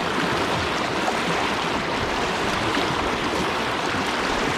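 Rushing creek current, a loud, steady wash of water around a wading angler.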